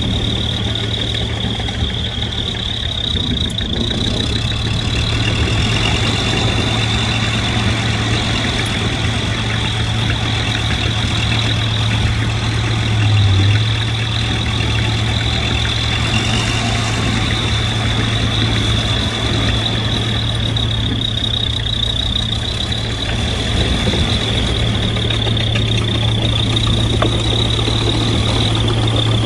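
Heavy diesel earthmoving machinery running steadily, a deep engine drone with a steady high whine over it, swelling briefly about halfway through.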